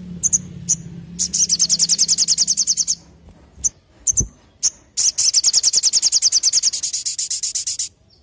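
Olive-backed sunbird (sogon) calling: two sharp high chirps, then a rapid high trill of about two seconds, two more chirps, and a longer trill of about three seconds that stops abruptly near the end.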